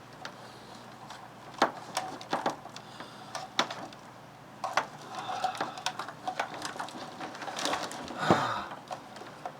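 Scattered clicks, knocks and rattles of computer cables, plugs and connectors being handled and pulled loose, with rustling; the loudest knock comes about eight seconds in.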